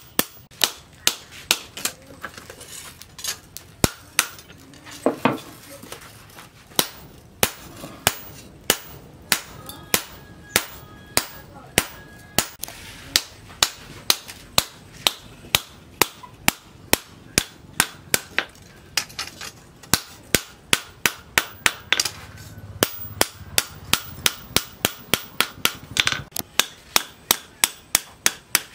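Hand hammer striking a red-hot steel cleaver blade on a steel post anvil, a steady run of sharp blows at about two to three a second: the blade's edge being forged out.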